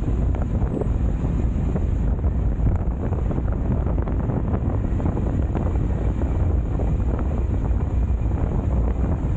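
Wind buffeting an action camera's microphone while riding at speed: a steady, loud low rumble.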